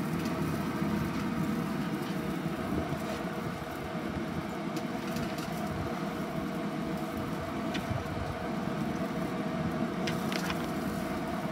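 A steady low motor hum with a few steady tones in it, joined by a few faint, light clicks.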